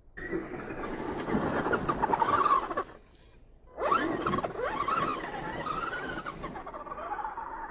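Kyosho Outlaw Rampage Pro RC truck running on a dirt trail: its motor and drivetrain whine rising and falling in pitch with the throttle, along with tyres scrabbling on dirt. The sound cuts out for about a second near the middle, then picks up again.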